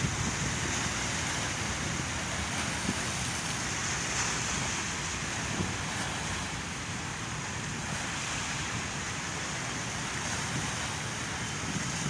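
Sea surf washing steadily against a rocky shore, with wind rumbling on the microphone.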